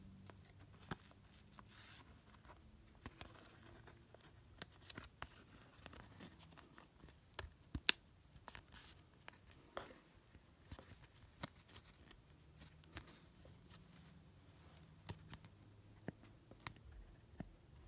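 Faint handling of a trading card and a rigid clear plastic toploader as the card is slid into it: scattered light clicks and scrapes of card against plastic, with one sharper click about eight seconds in.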